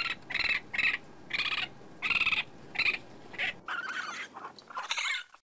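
Raccoon calling: a run of short, high-pitched calls about every half second, running together into a longer, wavering stretch after about three and a half seconds.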